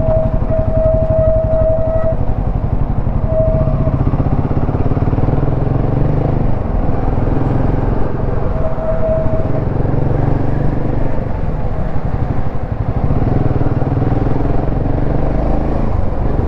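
Royal Enfield Himalayan 450's single-cylinder engine running while riding in traffic, a steady fast pulsing rumble. A thin steady whine sounds over it three times: for about two seconds at the start, briefly around three and a half seconds in, and again around eight to nine seconds in.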